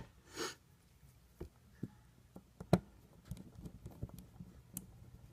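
Scattered small clicks and taps of tools and small phone parts being handled on a work surface during phone reassembly, with a brief rustle about half a second in and one sharper click near the middle.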